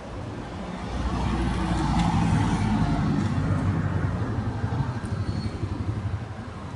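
A road vehicle's engine running close by, a low hum that gets louder over the first two seconds and eases off after about four seconds.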